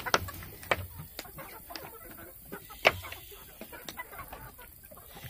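A flock of chickens clucking, with several short sharp sounds scattered through, the loudest about three seconds in.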